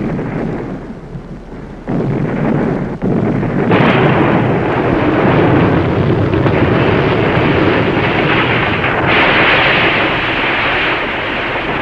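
Dense rumbling noise of aerial bombing explosions, loud and continuous, shifting abruptly in loudness and brightness about two, four and nine seconds in.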